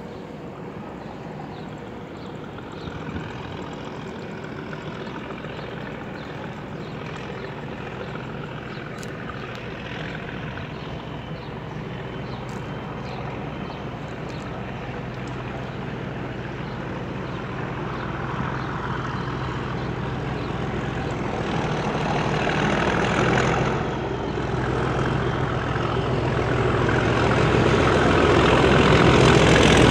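Class 37 diesel-electric locomotive's English Electric V12 engine thrashing under power as it approaches, growing steadily louder.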